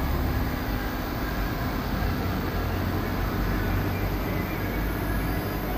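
Steady low hum and hiss of room tone, with no distinct sound events.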